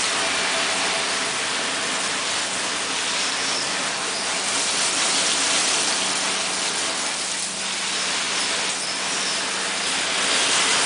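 A hard water jet from a garden hose spray wand drums on the cart's PVC deck cover and splashes onto wet floor tiles, simulating very intense rain. It is a steady spray throughout, easing briefly about seven seconds in and strengthening near the end.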